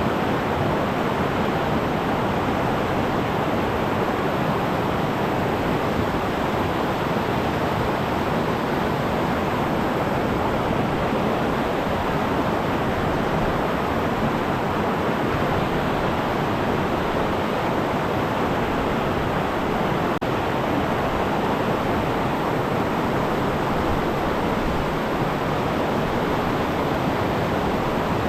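River rapids rushing as a steady, unbroken noise of white water.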